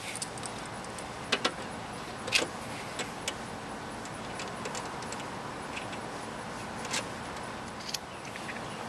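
Light metallic clinks and taps at irregular moments from a new A/C hose assembly's metal fittings being handled and fitted into an engine bay, the loudest about two and a half seconds in, over a steady background hiss.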